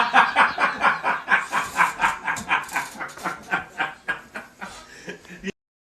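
A person laughing hard, a rapid rhythmic ha-ha-ha at about five pulses a second, growing gradually quieter, then cutting off abruptly near the end.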